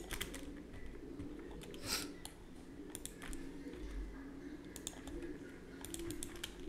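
Faint, scattered computer keyboard and mouse clicks, one every second or so, over a steady low room hum.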